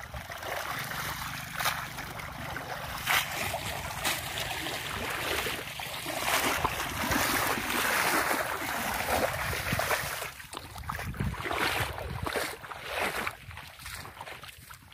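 Water splashing and sloshing as a cast net is swished through shallow muddy water to rinse it, then footsteps rustling through dry straw stubble in the last few seconds.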